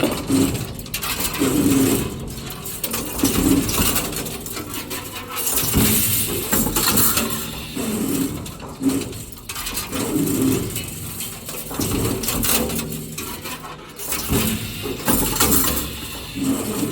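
YT-10 CNC rebar stirrup bending machine running, its motors humming in short bursts with knocks and clanks, in a cycle that repeats every couple of seconds as it feeds and bends the bar.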